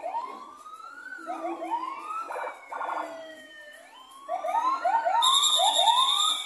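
Police patrol car's electronic siren, cycling through quick rising whoops and slower wails that sweep up and down in pitch. Several of these overlap. From about five seconds in, a long shrill whistle blast on one steady pitch is the loudest sound.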